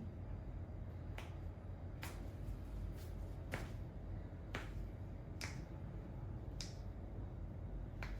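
A series of about eight light clicks at irregular intervals of roughly a second, over a low steady hum.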